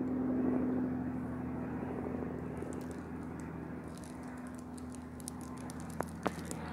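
A steady low engine drone, loudest in the first second and then easing slightly. Faint crackles join from about two and a half seconds in, and there are two sharp clicks close together near the end.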